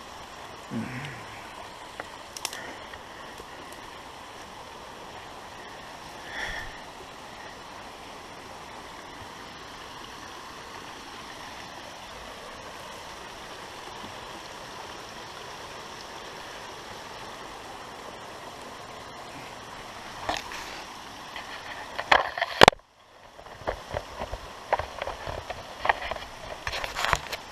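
Steady rush of water flowing through a beaver dam. About twenty seconds in come knocks and crackles, then a sharp click and a brief drop-out, followed by more crackling.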